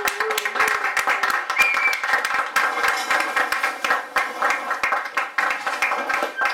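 A group of people clapping their hands, a dense run of sharp claps that keeps going without a break.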